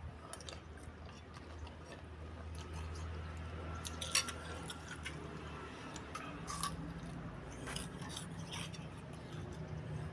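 Close-miked eating sounds of someone eating small meatballs with spicy noodles: soft chewing with scattered sharp clicks, the loudest about four seconds in.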